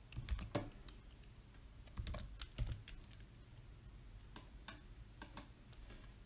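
Faint, irregular clicking of a computer keyboard and mouse, a dozen or so separate clicks with short gaps between them.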